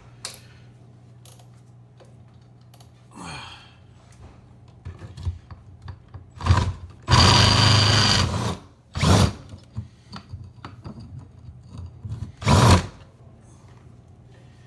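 Hammer drill boring through a house wall for an outlet cable, run in short trigger bursts with one longer run of about a second and a half near the middle.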